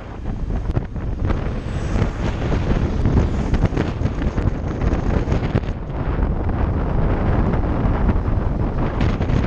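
Steady wind buffeting on the helmet-mounted camera's microphone while riding a motorcycle at road speed, with road and traffic noise underneath.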